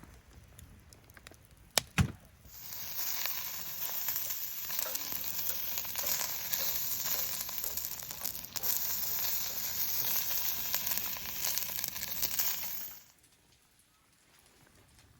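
Food sizzling as it fries in a hot pan, a dense, even hiss that starts suddenly a few seconds in and stops abruptly near the end. It is preceded by two sharp clicks.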